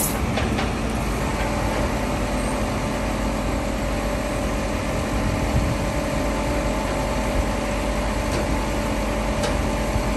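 Tilt-tray tow truck's engine running steadily, with a steady whine held over it. A sharp click right at the start.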